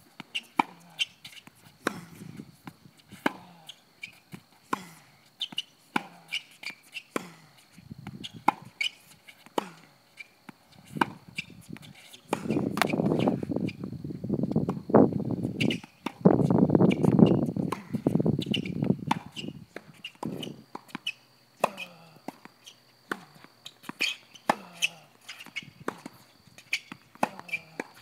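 Tennis ball strikes off a racket and ball bounces on a hard court during a rally, a sharp pop every second or so with lighter taps between. For several seconds in the middle a louder muffled rumbling noise covers them.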